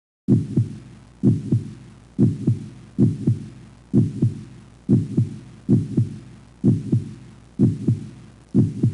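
Heartbeat sound effect: about ten slow double thuds (lub-dub), roughly one beat a second, starting a moment in.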